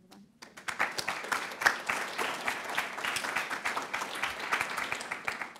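Audience applauding: many people clapping together, starting about half a second in.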